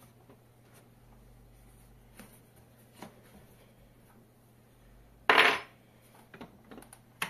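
Handling sounds from a gas-spring monitor wall-mount arm being swung with a monitor on it: a few faint clicks, one louder knock with a rub lasting under half a second about five seconds in, then a couple of small clicks and a sharp click near the end.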